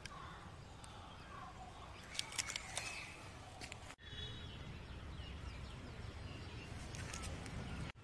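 Birds chirping in the background over a steady low outdoor rumble, with a short burst of sharp clicks about two seconds in and a brief call just after the middle.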